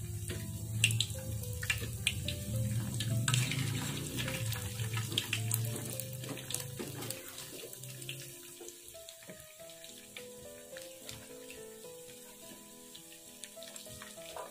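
Egg-coated tofu and rice vermicelli balls deep-frying in a small pot of hot oil: a steady sizzle with sharp crackles and spits, with a low rumble under it for about the first half. The sizzle is louder early on and settles quieter after about eight seconds.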